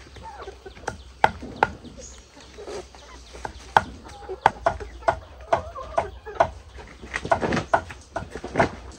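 Chickens clucking, with sharp knocks or taps scattered irregularly through, the knocks being the loudest sounds.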